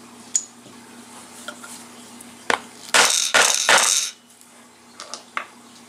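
Steel leather-stamping letter punches handled on a granite slab, clinking against each other and the stone: a light tick, a sharp click, then about a second of metal clatter, and two light taps near the end.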